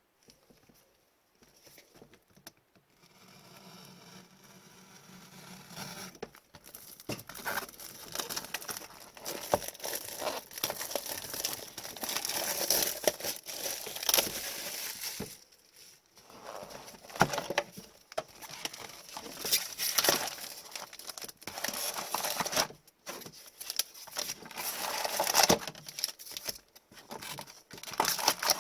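Plastic shrink-wrap being torn and crinkled off a sealed box of trading cards, with rustling and crackling as the wrapper and box are handled. It starts after about three seconds of near silence and comes in uneven bursts.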